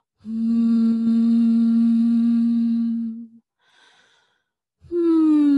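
A woman humming a forward-focused hum with a relaxed larynx, the basic exercise of resonant voice technique. She holds one steady note for about three seconds, takes a short breath, then starts a second hum near the end that slides down in pitch.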